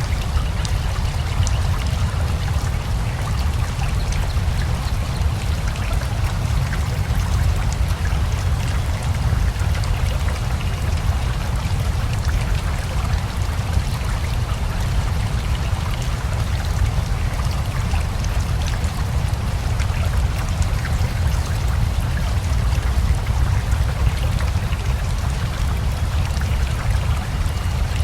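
Steady rain together with a flowing river: an even rushing of water with a deep low rumble and scattered light drop ticks, unchanging throughout.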